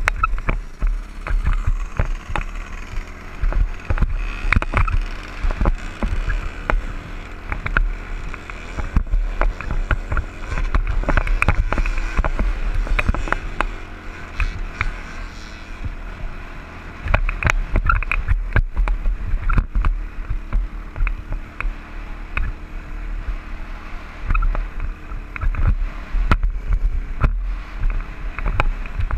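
Dirt bike engine running under throttle while riding over sand, with heavy wind buffeting on a helmet-mounted camera. The sound rises and falls with the throttle and eases for a couple of seconds about halfway through.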